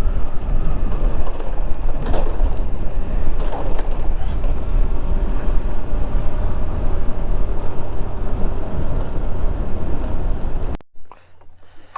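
Motorcycle on the move, heard from a helmet-mounted camera: a heavy, steady rumble of engine, road and wind over the microphone. It cuts off abruptly near the end.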